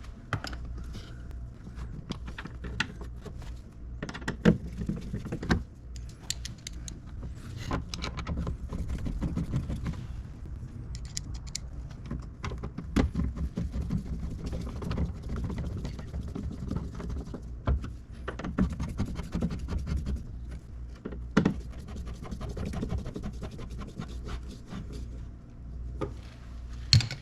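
Scattered clicks, taps and scraping from hand work on a car door's inner panel, as screws and parts are handled and fitted, with a few sharper knocks.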